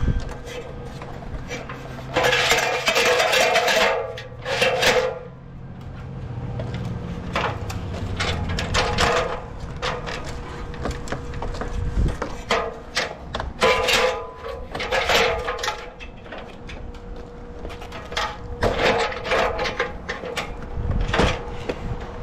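Vinyl siding panels being worked into place, with repeated scraping and rattling of the plastic in bursts of a second or two and a single sharp knock about midway.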